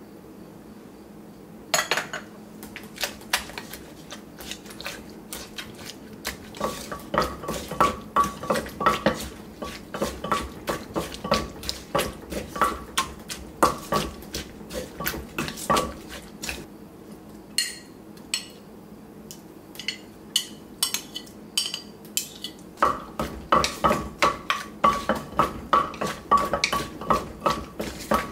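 Wooden pestle pounding papaya salad ingredients in a clay mortar: rapid knocks, several a second, starting about two seconds in, with a spoon clinking against the mortar in between.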